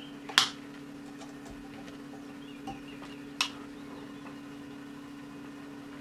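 Cutting pliers snipping the tails off nylon cable ties: two sharp snaps about three seconds apart, over a steady low hum.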